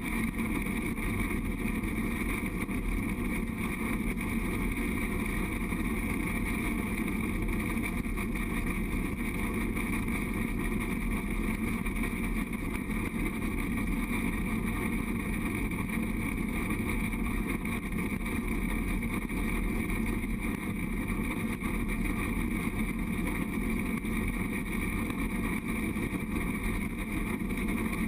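Steady running rumble of a narrow-gauge train rolling along the track, unbroken and at an even level.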